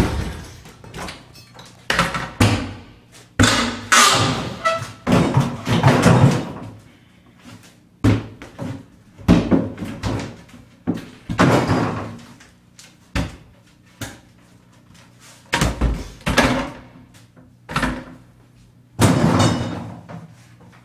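Irregular heavy thuds and bangs of wood: a bathroom vanity cabinet being knocked apart and wrenched loose during demolition, about a dozen separate knocks.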